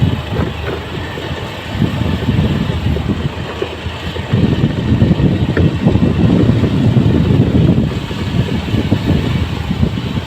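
Waterfall roaring: a loud, low rushing noise that swells from about four seconds in and eases a little near eight seconds.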